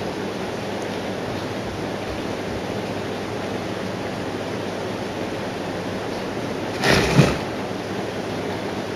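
Steady background hiss, with a brief louder rustle-like noise, two quick peaks, about seven seconds in.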